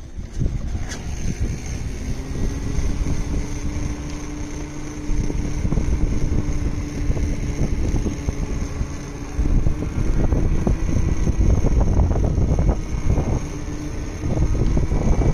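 Hero Vida electric scooter running with its rear wheel noise: a steady hum over heavy wind rumble on the microphone. From about ten seconds in, irregular clicks and knocks join it.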